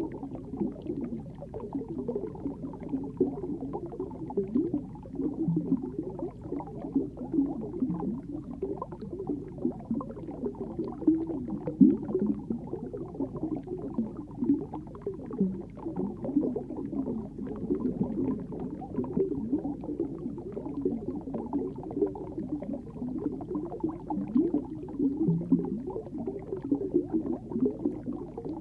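Underwater sound picked up by a submerged camera: an uneven, dull gurgling and bubbling of water that keeps up throughout, with almost no high sounds.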